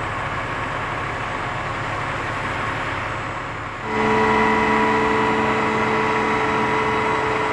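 Spartan Gladiator fire truck's diesel engine idling with a steady rumble. About four seconds in the sound jumps louder and a steady whine with several held pitches comes in: the engine at raised speed driving the hydraulics of the Rosenbauer aerial ladder under test.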